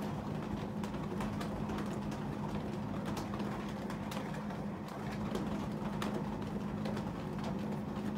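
Ceiling fan running with a steady motor hum and rush of air, with faint scattered ticks over it.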